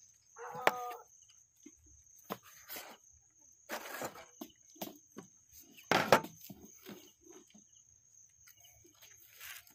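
Kitchen knife knocking and scraping on a wooden cutting board as sea cucumber is cut and handled, in irregular taps with the loudest about six seconds in. A steady high insect trill runs underneath, and a short voiced call sounds near the start.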